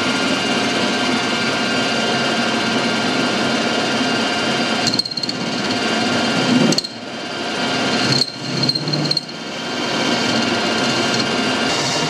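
Metal lathe running with a four-jaw chuck spinning while a turning tool cuts a centre on a stub of steel slightly harder than mild steel, the compound slide fed by hand. The steady cutting noise drops away briefly a few times in the middle.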